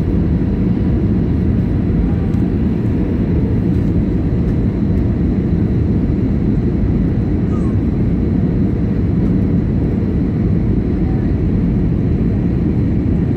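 Airbus A320 cabin noise on descent to landing: a steady, deep rumble of the engines and the air rushing past the fuselage, heard from a window seat.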